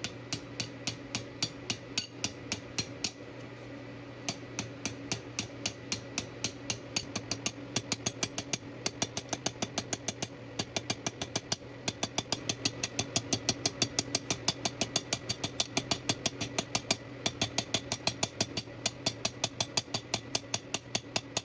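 Power hammer running with a steady motor hum and striking a steel tube tip in rapid, even blows, about five to six a second, forging the tip down to a small diameter. The blows grow a little louder and closer together after about eight seconds.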